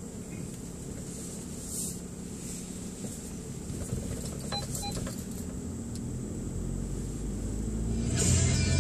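VW Polo GTI (6C) driving, heard as a steady low engine and road rumble that swells louder as the car picks up speed near the end. Two short beeps come about halfway through.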